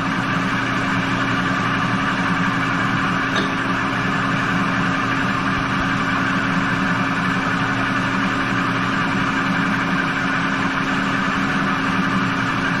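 Manual lathe running steadily at about 685 RPM, its spindle turning a bell housing in a fixture, a steady hum with a higher whine over it.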